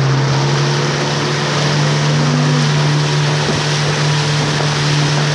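Boat engine droning steadily at one speed, over a steady rush of wind and water noise.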